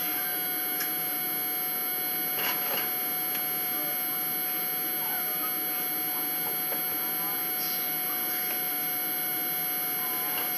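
A metal spoon scooping cookie dough out of a plastic tub, with a few faint scrapes and clicks, over a steady hum and hiss with a thin constant whine.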